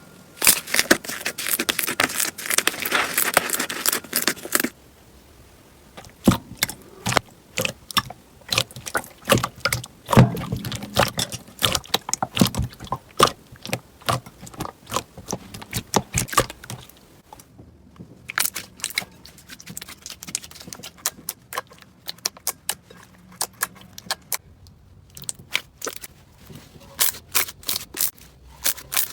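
Slime being squeezed and pressed by hand, giving crisp crackling and popping clicks: dense for the first few seconds, then scattered irregular pops.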